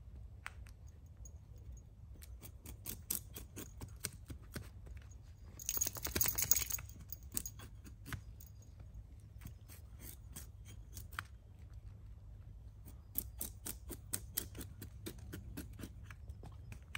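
A knife working wood by hand: a run of short, crisp cracks and scrapes, with a dense burst of scraping about six seconds in and another quick run of clicks near the end.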